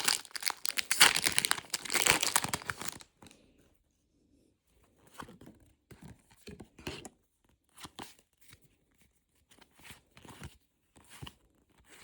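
A foil Pokémon booster pack wrapper being torn open, loud and continuous for the first three seconds. Then come scattered short crinkles and rustles of the wrapper and cards being handled.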